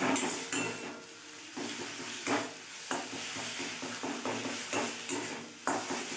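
Metal spatula scraping and stirring thick arum leaf paste around a metal kadai in irregular strokes, about one or two a second, with a light sizzle of the paste frying on low heat.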